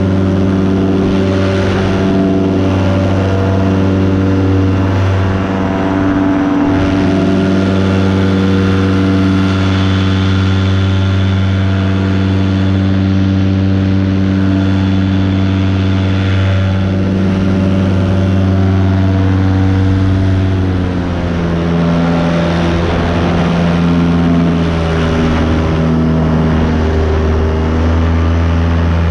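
Miniplane Top 80 single-cylinder two-stroke paramotor engine and propeller running steadily in flight. About two-thirds of the way through, the throttle is eased and the engine note drops to a lower pitch.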